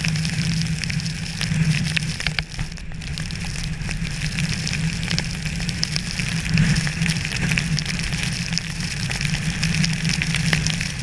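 Rain or sleet pattering steadily on hard surfaces, a dense run of small ticks over a steady low hum.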